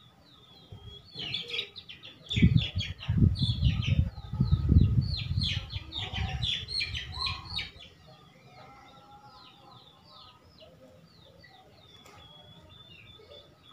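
Small birds chirping repeatedly, with a spell of dense chattering in the first half. A loud low rumbling noise from about two to eight seconds in is the loudest sound.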